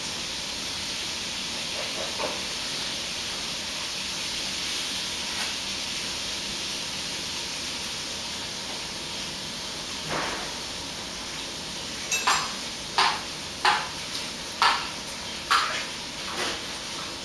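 Chopsticks clicking against small side-dish bowls, a few faint taps and then a run of about six sharp clinks, roughly one a second, near the end, over a steady hiss of background noise.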